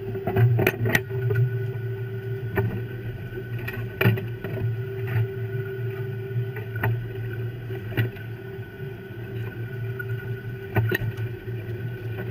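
Steady drone of a fishing boat's machinery, with scattered sharp clicks and knocks of snow crab shells being handled and sorted on deck.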